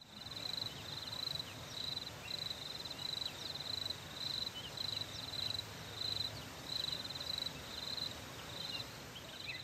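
An insect chirping, high trilled pulses repeating steadily about twice a second, over a soft outdoor hiss, with a few short faint chirps scattered through.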